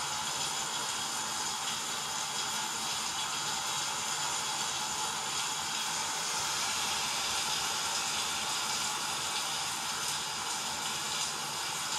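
Steady, even hiss of a rain-storm sound effect, with no breaks or changes.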